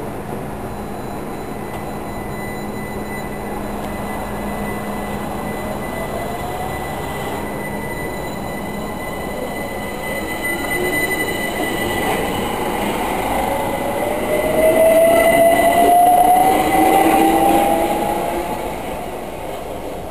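London Overground Class 378 Electrostar electric multiple unit pulling away from the platform and accelerating past. Its traction motors give a whine that rises in pitch as it speeds up, loudest about three-quarters of the way through, then fading as the train clears the station.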